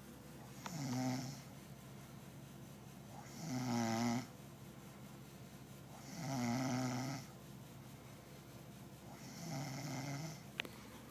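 Steady sleep snoring: four snores about three seconds apart, each lasting about a second, with a brief sharp click near the end.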